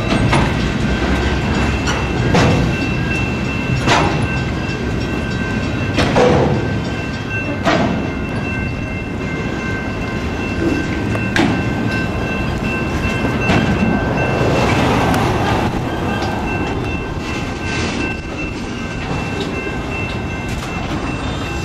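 A long train of railroad flatcars rolling past at close range, a steady rumble of wheels on rail broken by heavy metallic wheel clunks every couple of seconds in the first half. A thin, steady high tone runs underneath.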